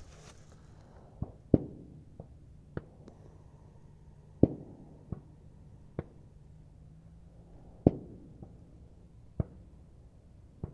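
Gunfire from other shooters elsewhere on the range: about ten single sharp reports at uneven intervals of one to two seconds, some louder and some fainter.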